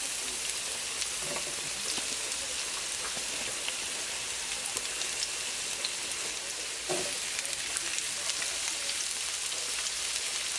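Onions and garlic sizzling in oil in a skillet: a steady crackling hiss. A couple of soft knocks, about a second and a half in and again near seven seconds, come as sliced bell peppers are dropped into the pan.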